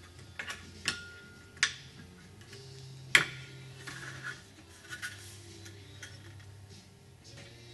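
Sharp, irregular metallic clicks and clacks as clamps are fitted onto thin aluminium sheet-metal spar parts, the loudest about three seconds in.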